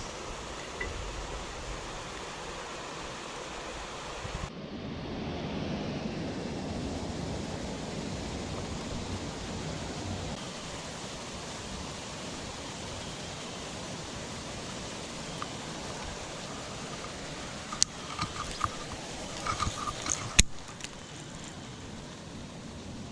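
Steady rushing noise, like water or wind on the microphone, which changes abruptly about four seconds in. A few sharp knocks come near the end.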